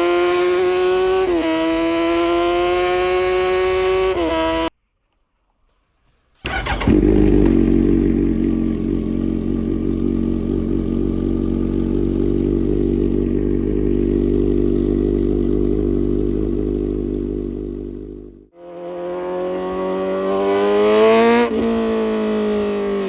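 Kawasaki Z900 inline-four with an aftermarket full exhaust system accelerating hard through the gears, its pitch climbing and dipping at each upshift. After a cut it holds steady low revs for about twelve seconds, then it revs up again with another upshift near the end.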